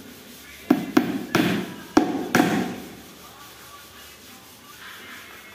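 Hammer tapping on a laminated board cabinet panel: five sharp knocks in quick succession in the first two and a half seconds, then a quieter stretch.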